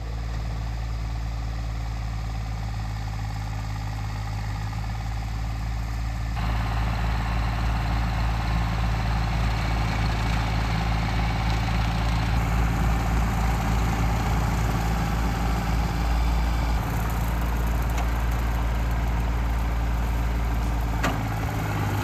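Tractor engine running steadily under load while pulling a rear mower through tall weeds and clover. It gets louder about six seconds in as the tractor comes closer.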